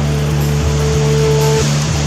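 Background music: held notes that change every second or so over a steady bass line.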